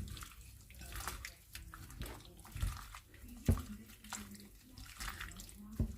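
Hands squeezing and tossing raw sliced pork in a wet marinade of oyster sauce and seasonings in a bowl: irregular wet squishing and squelching. A few dull thumps come through, the loudest about halfway through.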